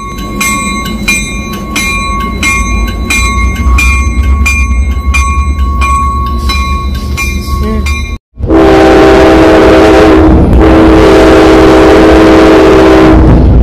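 A train passing close with a bell ringing steadily, about three strikes a second, over the low rumble of the train. Then a multi-chime train air horn blows very loud, in a long blast broken briefly twice.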